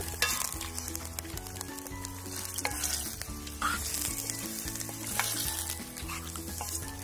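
Raw chicken pieces sizzling in hot oil in a steel pan, turned with a wooden spoon that knocks and scrapes against the pan every second or so.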